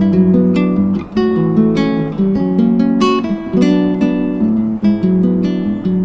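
Background music on acoustic guitar: a continuous run of plucked notes.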